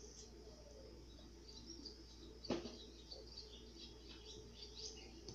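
Quiet room with faint, scattered high chirps like distant birds, and one short soft click about two and a half seconds in.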